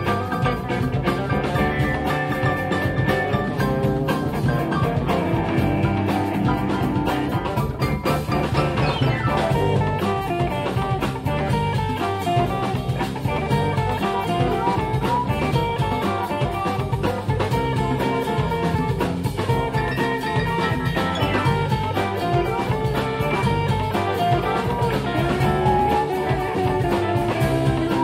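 Blues band playing live: electric guitars, bass and drums over a steady beat.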